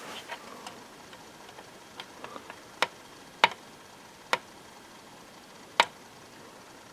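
Scattered sharp clicks from handling a hard drive cloning dock and pressing its buttons. Four are louder, irregularly spaced over a few seconds, with smaller ticks between.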